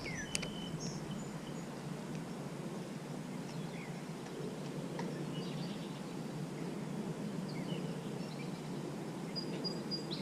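Outdoor ambience: a steady low background rumble with scattered short bird chirps, and a single sharp click about half a second in.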